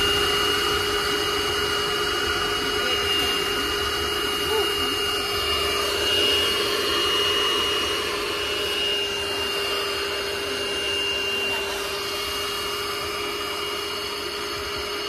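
Corded vacuum cleaner running steadily while vacuuming a car's interior, its motor giving a constant high whine over a steady rush of air.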